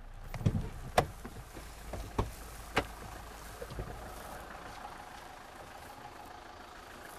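A car door being unlatched and swung open, with several sharp clicks and knocks as a person climbs out of the car. A low hum underneath dies away about four seconds in.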